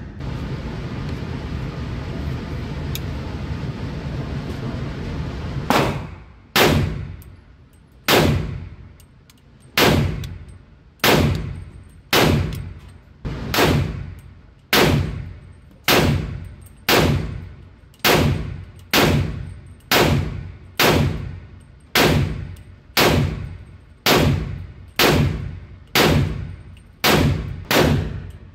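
AR pistol in .300 Blackout fired at a slow, steady pace, about one shot a second, each shot trailing off, starting about six seconds in after a stretch of steady rushing noise.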